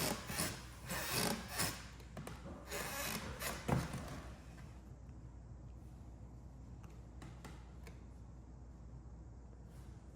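Wooden floor creaking and rubbing as it is stepped on, in irregular strokes for about the first four seconds, then a few faint knocks. The squeak comes from loose nails in the subfloor rubbing against the wooden joist as it flexes under weight.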